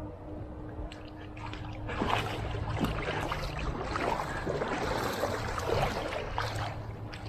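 Swimming-pool water splashing and sloshing in quick irregular bursts, starting about two seconds in, over a low steady hum.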